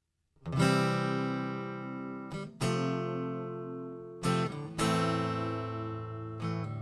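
Acoustic guitar strumming the song's intro chords. A chord is struck about every two seconds and left to ring and fade, with a few quicker strokes between them.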